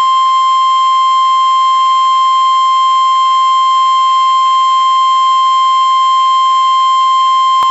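NOAA Weather Radio 1050 Hz warning alarm tone: a loud, steady single-pitched tone held unbroken, the signal that a warning such as a tornado warning is about to be read. A single click near the end.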